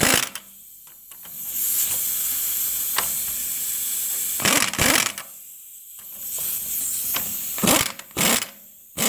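Air ratchet running on the U-bolt nuts of a leaf-spring plate on the rear axle: one steady run of about three seconds, then a shorter, quieter one, with several sharp metallic knocks between.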